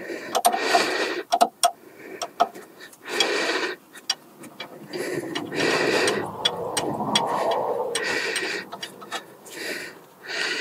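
A ratcheting spanner clicking at irregular intervals as a brake caliper's guide-pin bolt is undone, among the mechanic's heavy, noisy breaths every couple of seconds.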